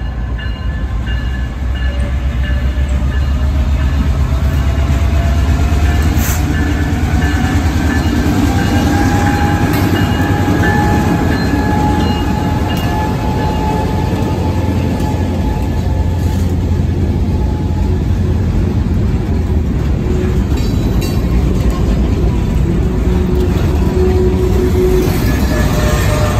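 CSX GP38-3 diesel locomotive, with its 16-cylinder EMD engine, rumbling heavily as it rolls slowly past at close range; the rumble swells in the first few seconds and eases after it passes. Freight cars follow, rolling by with faint steady wheel squeal on the rails.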